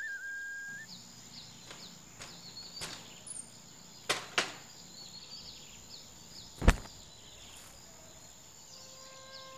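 Quiet ambience with a steady high-pitched drone and faint short chirps, after a held flute note from the score dies away in the first second. Two sharp clicks come around four seconds in, and a louder single knock comes near seven seconds.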